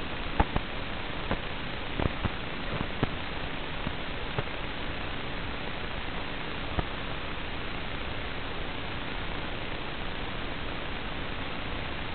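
Steady hiss of static in a low-fidelity analogue FPV goggle recording, the drone's motors stopped. A handful of sharp clicks come in the first five seconds, the first of them the loudest, and one more comes about seven seconds in.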